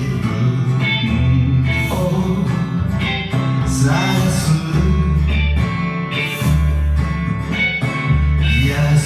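Band music: guitar over a bass line of long low notes that change about once a second, with a bluesy feel.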